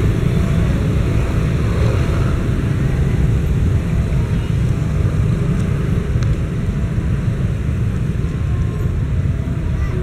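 Steady low engine rumble, even throughout with no distinct events.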